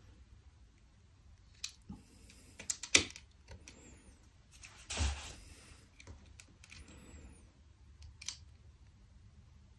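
Scattered small clicks and taps of a lithium-polymer battery and plastic and metal parts being handled and pressed into a Nest thermostat's display housing, the sharpest click about 3 s in and a brief scrape about 5 s in.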